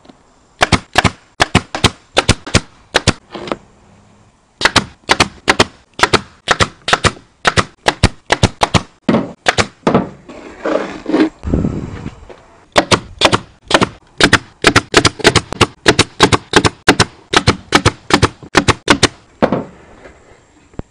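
Pneumatic upholstery staple gun firing staples through vinyl into a plywood console, about fifty sharp shots coming two to three a second in runs. There is a short break about four seconds in, and a longer break around the middle filled with a softer noise.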